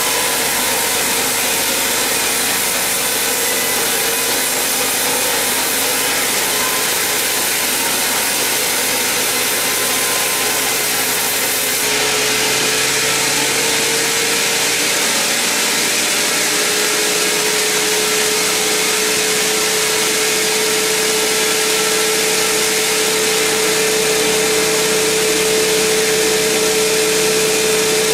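Large sawmill band saw ripping lengthwise through a huge mahogany log: steady, loud sawing noise. About twelve seconds in the sound shifts and a steady humming tone comes up under it.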